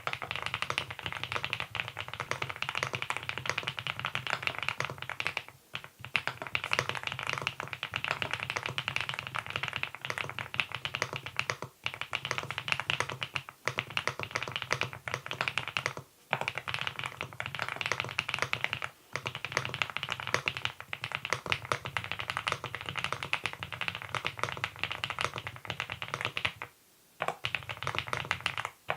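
Typing on a Monstargear Ninja87 Pro ALU aluminium-case mechanical keyboard fitted with its stock Hanbaekok switches: fast, continuous keystroke clacking, broken by a handful of brief pauses.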